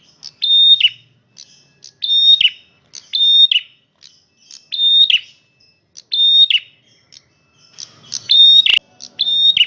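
Male prenjak merah calling loudly and repeatedly: about a dozen short, sharp calls, one every half-second to second, each a high steady note that drops in pitch at the end. A single sharp click near the end.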